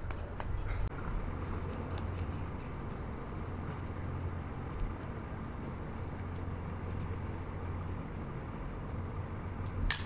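Steady low hum and rumble of outdoor background noise, with a few faint clicks in the first second.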